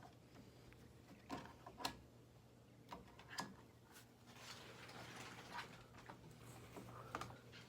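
Near silence with a faint low hum and scattered soft clicks and taps.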